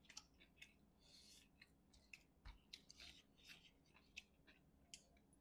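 Faint, scattered wet clicks and smacks of eating by hand: fingers tearing apart a whole curry-soaked chicken and squelching through the gravy, with some chewing.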